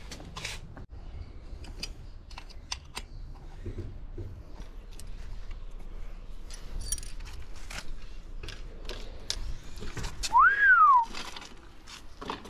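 Scattered light clicks and ticks, then about ten seconds in a single whistle that slides up and back down, lasting under a second.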